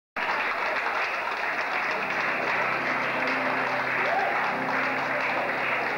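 Audience applauding, with music underneath from about two seconds in.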